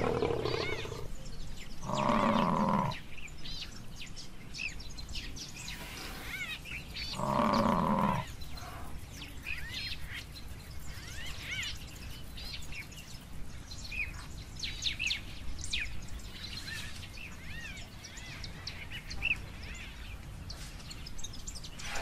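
Buffalo bawling: three drawn-out calls, the loudest about 2 and 7.5 seconds in, over the chirping of birds.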